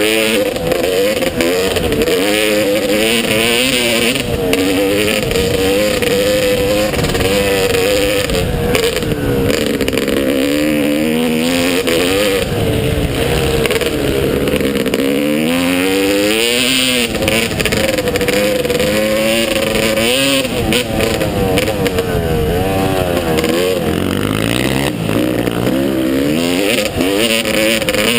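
Motocross bike engine revving, its pitch climbing and dropping again and again as the throttle opens and closes, with a few sharp knocks.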